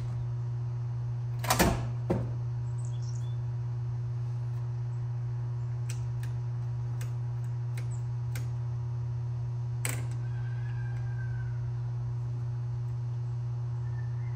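Knocks and light clicks of hands handling metal parts in a VW Beetle's air-cooled engine bay: a loud double knock about a second and a half in, then scattered clicks. A steady low hum runs underneath, and a few faint high chirps come near the end.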